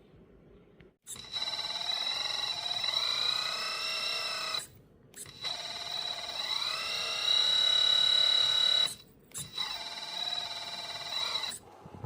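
Electric hydraulic pump motor of a Lesu MC15 RC hydraulic excavator whining in three runs, each climbing in pitch as it spins up and then holding steady, with a thin high steady whine over it and brief stops between.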